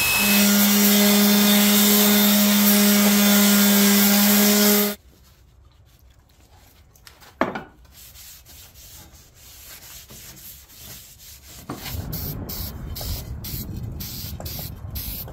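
A cordless drill boring through steel angle iron, running steadily at speed for about five seconds, then stopping suddenly. Near the end come short, repeated hissing bursts from a spray-paint can.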